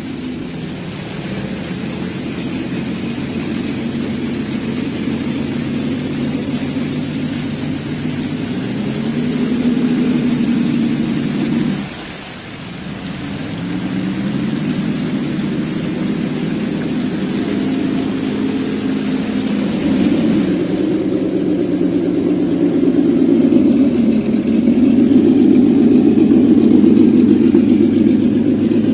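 Simulated engine sound from an ESS-Dual sound module's speaker on a Traxxas TRX-4 RC crawler, its pitch repeatedly rising and falling with the throttle, dropping off briefly about twelve seconds in. A steady high whine runs underneath, weaker in the last third.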